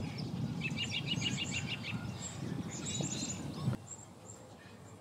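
A small bird calling in quick runs of high chirps over a steady low outdoor rumble. A little under four seconds in, the rumble drops away suddenly, leaving a few fainter high calls.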